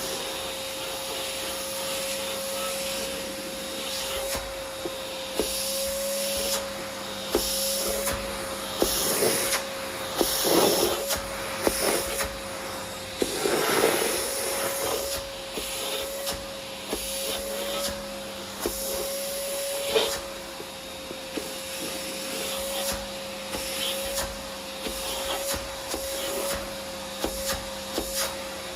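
Vacuum cleaner running with a steady motor whine, with frequent irregular clicks and crackles of grit and debris being sucked up, louder surges of crackling about halfway through.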